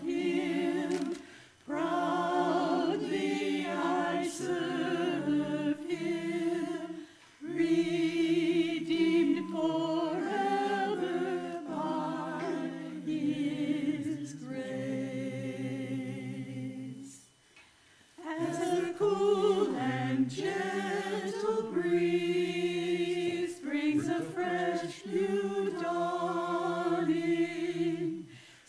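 Small mixed church choir of men and women singing a hymn anthem, seemingly unaccompanied, in sustained phrases with short breaks for breath, the longest about two-thirds of the way through.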